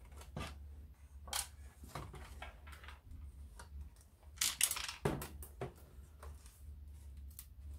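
The metal chassis of a stripped-down Grundig TK-121 reel-to-reel tape recorder being handled and turned over on a wooden bench: scattered knocks and rattles, with the loudest clatter about halfway through. A steady low hum runs underneath.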